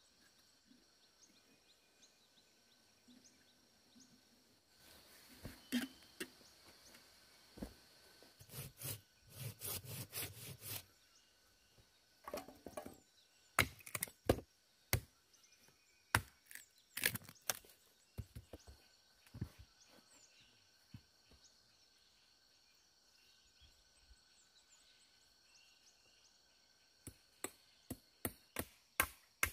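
Hatchet chopping wood: sharp strikes in separate runs, starting about five seconds in, with a quick run of about three strikes a second near the end.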